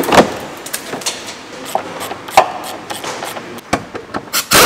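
Scattered metallic clanks and knocks of hand tools and parts being handled under a car, a few ringing briefly, with a quick cluster of knocks near the end.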